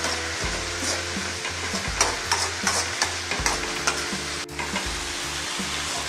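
Fresh mint leaves sautéing in hot oil in an aluminium kadai with a steady sizzle, while a steel ladle stirs and scrapes against the pan; a run of sharp scrapes comes about two to three seconds in.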